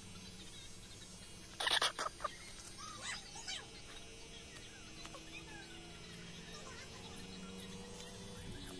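Scattered bird chirps over a low steady background, with a brief cluster of loud sharp sounds about a second and a half in.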